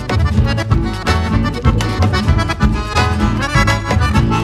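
Instrumental background music with a steady beat and bass line.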